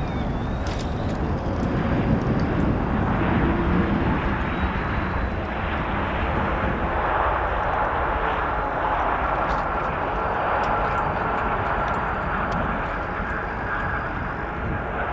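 Boeing 787's jet engines running at low power as the airliner moves along the ground: a steady rush of engine noise, with a thin whine coming in about halfway through.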